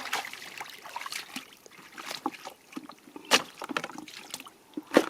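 Water splashing and sloshing in irregular strokes, with two louder splashes, one a little past the middle and one near the end.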